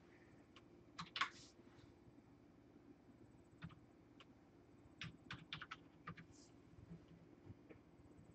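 Faint computer keyboard typing: a couple of keystrokes about a second in, then a quick run of about half a dozen keys around five seconds in, with a few stray taps after.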